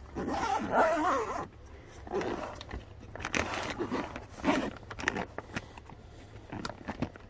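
A soft-sided cooler bag being opened and rummaged through, with rustling and handling noise in several short bursts and a few sharp clicks; the loudest burst is in the first second and a half.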